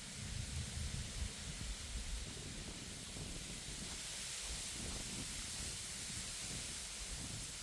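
Wind blowing through reeds, a steady rustling hiss, with gusts buffeting the microphone in low rumbles over the first couple of seconds.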